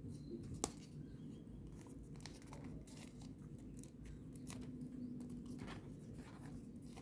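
Faint rustling and light clicks of folded paper origami units being handled and slotted together, with one sharper click a little over half a second in.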